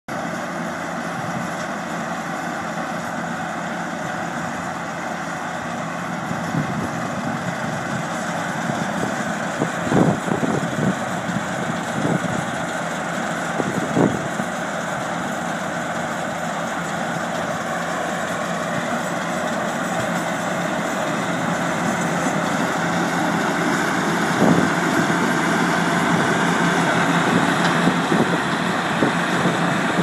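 Allis-Chalmers 180 tractor engine running steadily under load, pulling a Hesston 5530 round baler as it picks up hay. It grows louder as the rig comes closer, with a few short knocks.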